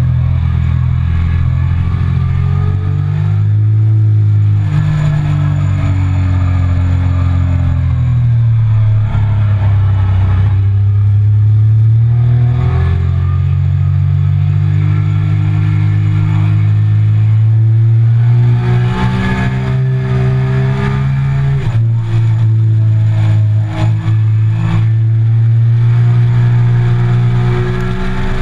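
Triumph Speed Triple 1050's three-cylinder engine under hard riding, its pitch climbing as it accelerates, dropping off about a third of the way in and again with a sudden step down a little past two thirds in, then climbing once more.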